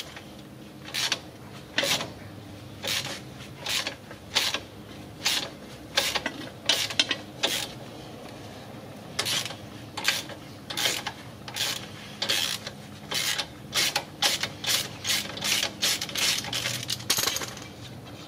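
Hand socket ratchet clicking in short bursts as it is swung back and forth to spin off a rusty nut on the steering knuckle, which is turning freely now that it has broken loose. The bursts come about once a second and crowd closer together near the end.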